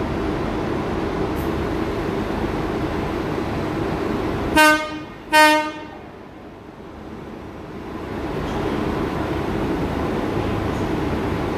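A heritage Sydney S-set double-deck electric train sounding its horn as it pulls into the platform: two short toots less than a second apart, about halfway through, over the steady rumble of the approaching train.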